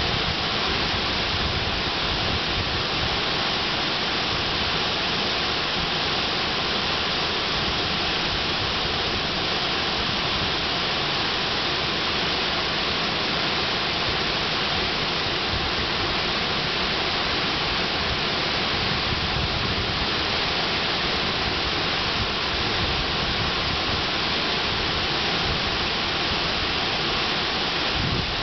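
Waterfall on the LaChute River rushing steadily, a constant dense hiss of falling water.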